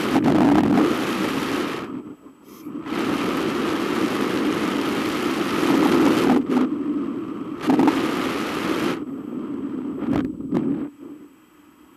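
Wind rushing over the microphone of a camera mounted on a hang glider in flight. It comes in gusts, dropping away about two seconds in, then rising again, and fading down near the end with a couple of short buffets.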